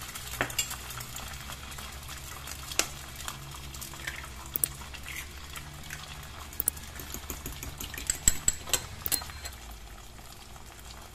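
Beaten egg frying in a thin layer of oil in a nonstick pan: a steady sizzle with scattered sharp crackles and pops, several of them close together around eight to nine seconds in.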